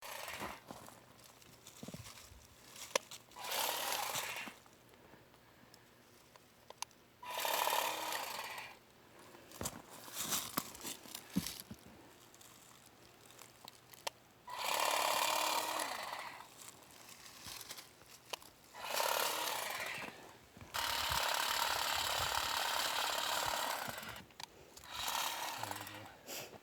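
Lavender being cut with a powered trimmer-type harvester, run in about six bursts of one to three seconds each with short pauses between.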